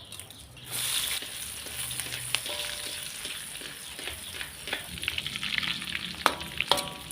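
Sliced shallots sizzling in hot frying oil, the sizzle starting about a second in and being stirred. Near the end come a few sharp metallic clinks of a utensil against the pan.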